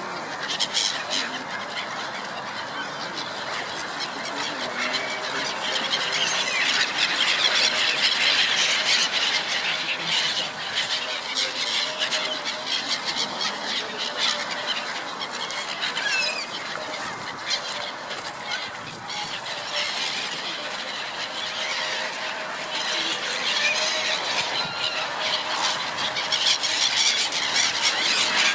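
A flock of gulls calling over one another in a dense, continuous chorus of squealing cries, swelling louder twice.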